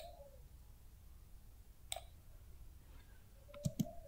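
A few faint computer mouse clicks: one at the start, one about two seconds in, and a quick double click near the end.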